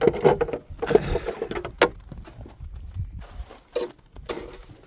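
Several sharp knocks, clicks and scrapes of hands handling parts and tools on a snowblower, bunched in the first two seconds with a few more later on.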